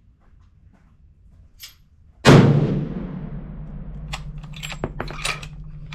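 A single high-powered rifle shot about two seconds in: a sharp crack with a long echoing decay. A low hum lingers after it, and several short clicks follow.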